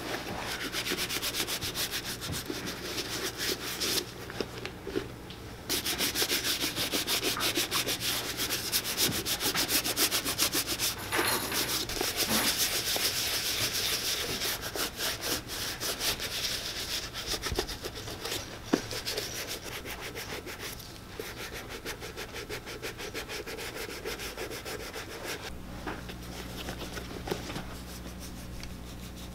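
Rubber-gloved hand rubbing oiled leather cream into a leather boot upper in quick, repeated strokes. There is a short pause about four seconds in, and the rubbing grows softer near the end.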